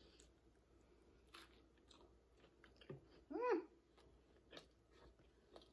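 Faint mouth sounds of a person chewing a chicken taco, with scattered soft clicks. About three and a half seconds in comes one short hummed vocal sound that rises and then falls in pitch.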